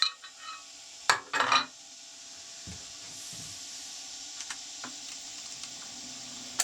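Metal woodturning tools clinking and knocking as they are picked up and handled: a few sharp knocks in the first two seconds, then a steady low hum and hiss with only faint ticks.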